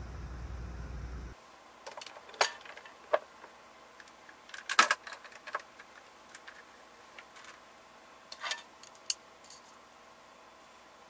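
Scattered light clicks, taps and clinks of utensils and dishes being handled at a table, the sharpest few taps about two to five seconds in and a couple more near the end. For about the first second a steady low rumble plays, then cuts off suddenly.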